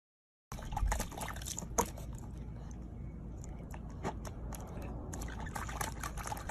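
Water sounds with scattered sharp clicks over a steady low rumble, starting about half a second in after a moment of silence.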